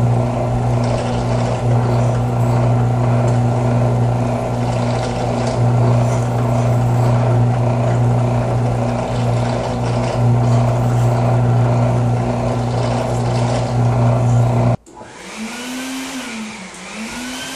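Benchtop drill press running with a steady, loud motor hum as a step drill bit lightly cuts into the edges of holes in 3 mm aluminium plate, deburring and bevelling them. About 15 seconds in the hum cuts off abruptly, and a quieter whirring follows whose pitch rises and falls.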